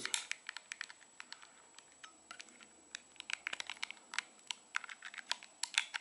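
A metal knife blade prying at the plastic casing around the central button of an LG Magic Motion TV remote: irregular small plastic clicks and scrapes, coming thicker in the second half.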